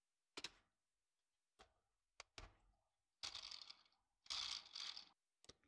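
Soft clicks and short rattles of plastic Lego Technic parts being handled and fitted together: a few single clicks, then two longer rattling stretches near the middle and end, and one last click.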